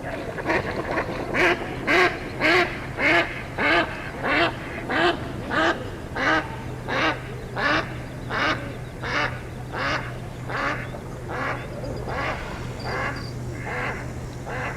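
A duck quacking in a long regular series, about two quacks a second, the quacks softer over the second half. A steady low hum runs underneath.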